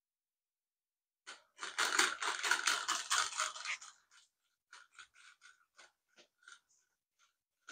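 Rubber-band-powered car on 3D-printed plastic paddle wheels running on a wooden floor: a dense clatter of plastic paddles striking and scraping for about two and a half seconds, then separate clicks that come further and further apart as the rubber band runs down.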